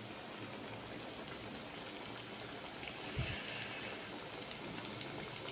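Potato cutlets shallow-frying in hot oil in a kadai: steady sizzling with a few small crackles, and a soft low bump about three seconds in.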